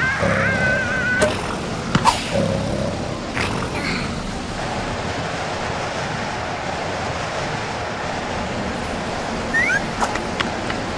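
Cartoon sound effects: short squeaky creature cries and a few sharp knocks in the first few seconds, then a steady windy hiss, with one brief squeak near the end.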